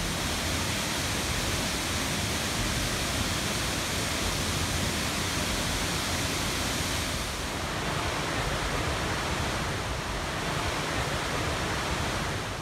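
Tall waterfall plunging into its pool, making a steady, even rush of falling water.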